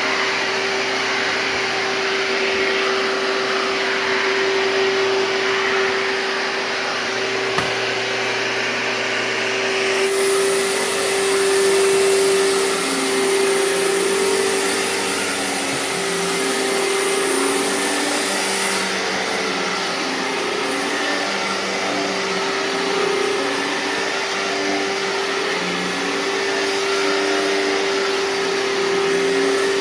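Hoover TurboPower 5000 canister vacuum running on straight suction, a loud, steady motor whine over rushing air. About ten seconds in the airflow turns hissier, and it eases back a little later on.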